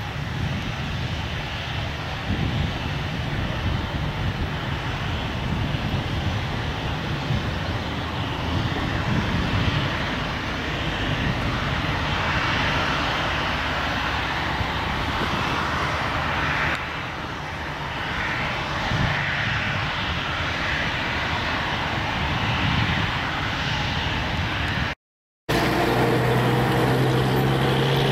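A Boeing 737-700's CFM56-7B jet engines running at low taxi power: a steady rushing hum. Near the end the sound drops out for a moment, then comes back as a steadier hum.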